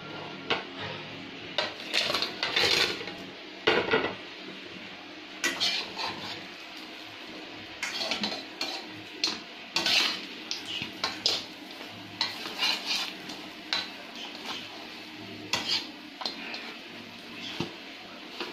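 Metal spatula scraping and clinking against a wok in irregular strokes while fried saba banana fritters are turned in a syrup.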